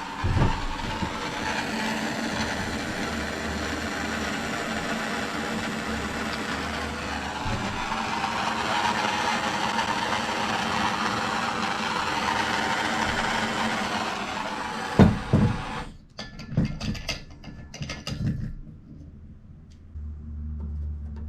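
Soldering torch flame hissing steadily as it heats a brass and copper pipe fitting for soldering, then shut off suddenly about sixteen seconds in, followed by a few scattered knocks and clicks.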